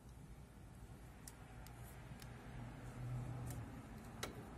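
Faint scattered clicks and a brief low hum about three seconds in, as the print head carriage of an Epson LQ-2190 dot matrix printer is slid by hand along its guide rail.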